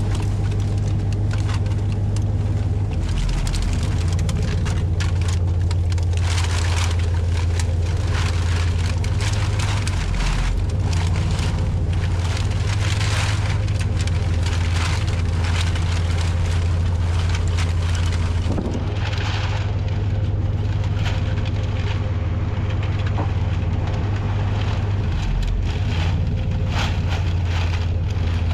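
A steady, loud engine drone with irregular clattering and crackling throughout.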